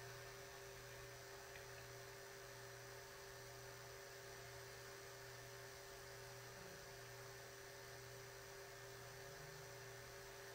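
Near silence: a faint, steady electrical hum in the recording, with no other sounds.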